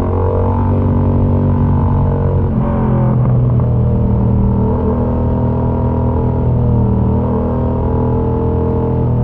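Yamaha MT-07's parallel-twin engine running loud through an aftermarket Mivv exhaust with the dB killer removed, held at a fairly steady engine speed while riding, with a brief dip in revs about three seconds in.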